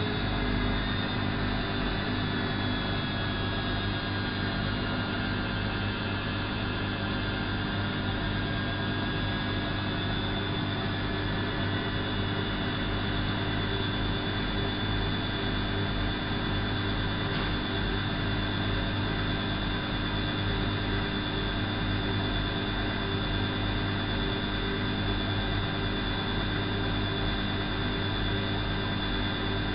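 Elin WM26AAA washing machine running steadily, its motor giving a continuous hum and whine. A few of the whining tones drift in pitch during the first ten seconds or so, then hold level.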